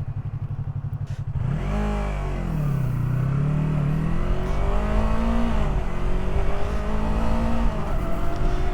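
Yamaha R3's parallel-twin engine ticking over steadily for about a second and a half, then pulling away and revving up, its pitch climbing and dropping back at gear changes before rising again.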